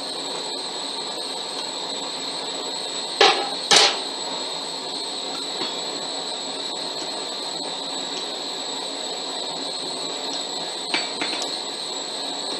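Two sharp, ringing hammer blows on metal at the anvil, about half a second apart, a little over three seconds in, then two lighter metal strikes near the end, over a steady background noise.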